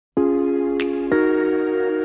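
Background music: sustained synthesizer chords that start just after the opening, with a short cymbal-like swish and a change of chord about a second in.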